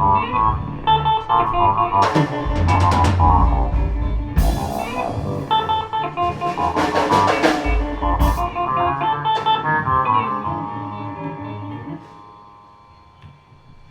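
Live jam of guitar and drum kit playing together, with several cymbal crashes. About twelve seconds in the playing stops and a held guitar chord rings out.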